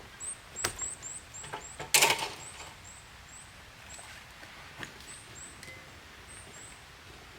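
A few sharp knocks, the loudest a short clatter about two seconds in, over faint high chirps repeating about three times a second.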